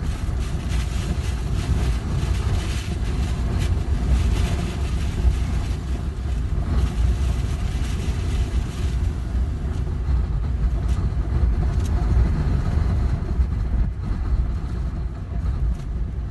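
Typhoon-force wind rushing and buffeting the microphone, a heavy, unbroken rumble with gusting noise above it.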